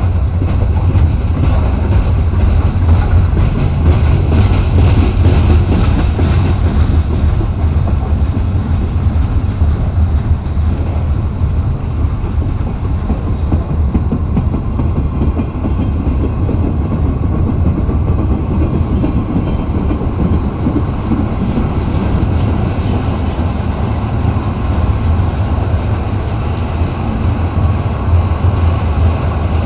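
Freight train cars rolling past, their steel wheels running on the rails in a loud, steady noise.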